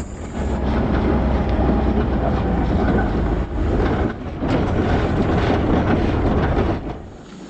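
Pickup truck driving on a dirt road towing a boat on a trailer: loud, steady road and engine noise with a deep rumble, dropping away suddenly near the end.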